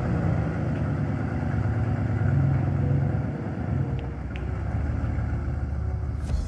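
Dodge Ram pickup truck running, a steady low engine drone with no sharp events.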